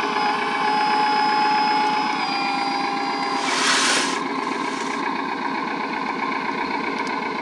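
1/14-scale hydraulic RC construction machine working: a steady diesel-like engine sound with a high hydraulic-pump whine that rises, holds for about three and a half seconds, then stops. A brief rush of loose material follows as the asphalt patch mix pours out.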